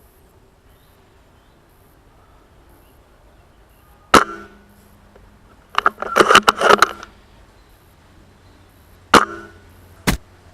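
Spring-piston VSR-10 airsoft sniper rifle firing: a sharp shot about four seconds in, a quick rattle of the bolt being cycled about two seconds later, then a second shot just after nine seconds, followed by a dull thump.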